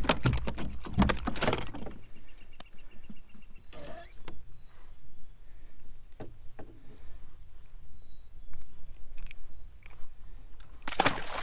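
Clicks and rattles of a metal trolling spoon and its hooks as a lake trout is unhooked by hand. The handling is loudest in the first two seconds, with scattered small clicks after. Near the end there is a short rush of water, as when the fish is dropped back into the lake.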